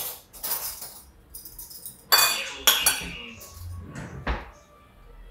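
Dishes and cutlery being handled on a kitchen counter: several sharp clinks and clatters, the loudest about two to three seconds in.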